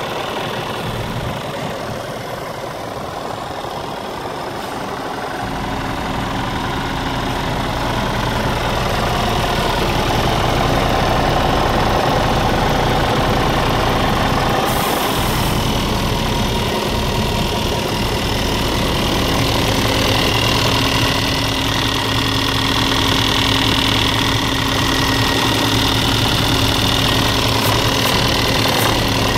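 Scania R450 tractor unit's 13-litre straight-six diesel engine idling steadily, growing louder and fuller about five seconds in and then holding an even hum.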